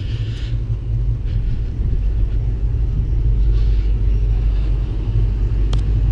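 Low, steady rumble outdoors, with a single sharp click near the end.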